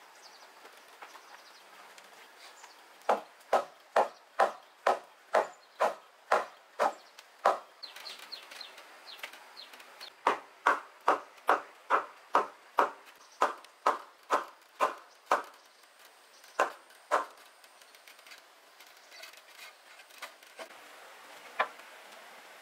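Repeated sharp chopping blows of a tool striking wood, about two a second, in two runs of ten or so blows with a pause between, then a few single blows.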